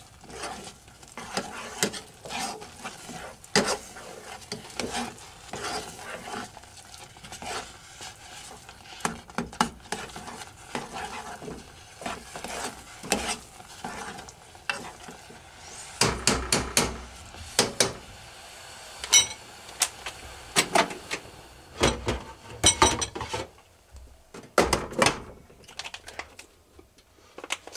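A spoon stirring and scraping thick rice-and-egg porridge in a pot, with frequent clinks and scrapes against the pot's sides. There is a run of louder clanks in the second half.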